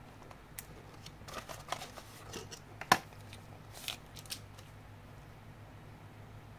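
Small objects being handled on a table, as in unboxing: a run of light clicks, taps and short scrapes, with one sharp click about three seconds in, then only a low room hum.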